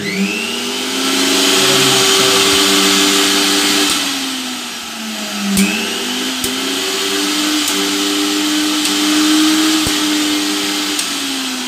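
Ashoka mixer grinder's motor running with no jar fitted, working again after its overload switch was replaced. It is switched on and speeds up to a steady whine, dips about five seconds in and picks up again after a click, then slows near the end.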